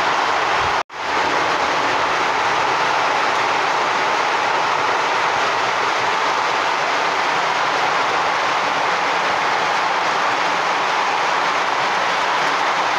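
Heavy rain falling steadily, a loud even hiss with no letup; the sound cuts out for an instant about a second in.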